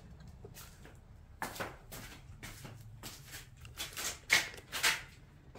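Quiet footsteps scuffing on a dusty concrete slab floor: a handful of soft, irregular scrapes.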